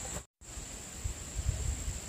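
Outdoor ambience: a steady high-pitched insect drone over hiss, with low gusts of wind on the microphone building after the first second. The sound drops out completely for a moment just after the start.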